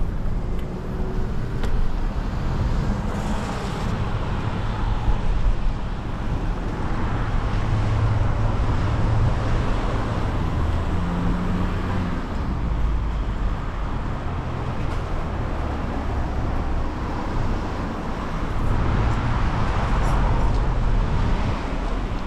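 City street traffic on a wet road: cars passing with tyre hiss over a steady low rumble, swelling about eight seconds in and again near the end.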